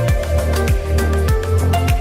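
Background music: an electronic track with a steady beat, deep bass drum and held bass notes.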